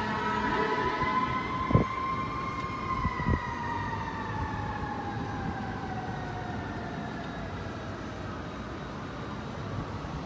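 Emergency vehicle siren wailing: one slow rise in pitch, then a long slow fall over several seconds. Two sharp knocks come about two and three seconds in.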